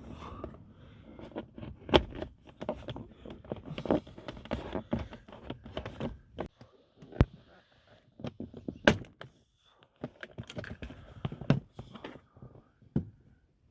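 Plastic seat side trim panel being pried loose with a pry tool: irregular clicks, knocks and scraping of hard plastic, with a few louder sharp snaps as retaining clips give.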